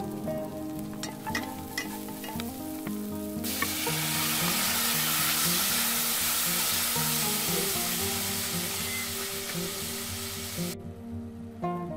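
Tomato chunks frying in hot oil with garlic and chilli, stirred with a utensil: a loud sizzle that starts about three and a half seconds in and cuts off abruptly near the end. Soft background music plays throughout.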